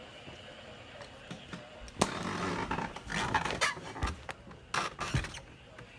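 Midland WR120 weather radio going off with an Emergency Alert System warning, heard from across the room. A rough, raspy buzzing starts suddenly about two seconds in and runs in uneven stretches for three to four seconds, with a couple of dull thumps.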